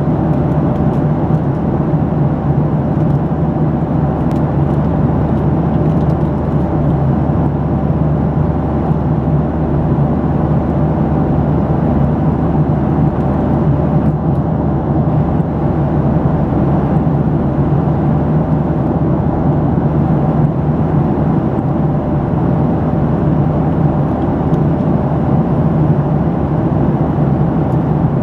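Steady cabin noise inside a Boeing 737 airliner in flight: the jet engines and rushing airflow make an unbroken drone with a low, constant hum.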